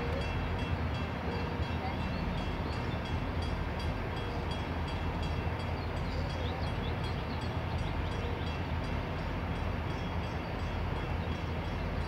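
Steady low rumble of idling vehicle engines in stopped traffic, with faint high chirps now and then.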